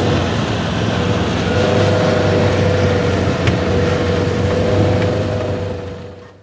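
Side-by-side utility vehicle running as it drives away across a field, a steady engine drone with a held whine over it, fading out near the end.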